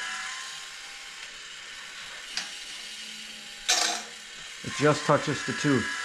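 Woodland Mills bandsaw blade sharpener cycling with only its drive running and the grinding wheel off, a dry run to check that the grinder just touches each tooth. A steady motor hum runs throughout. There is a sharp metallic clack a little past halfway, then a run of quick ratcheting strokes near the end.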